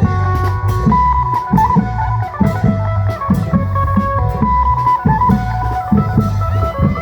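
Isan klong yao music: long drums and a bass drum beating a steady, driving rhythm under a plucked-string melody in the lai phin style.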